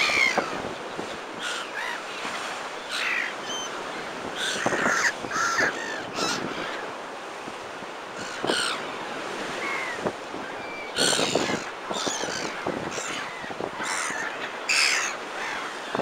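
A flock of gulls calling: many short cries, singly and in quick runs, over the steady wash of rough surf breaking close by.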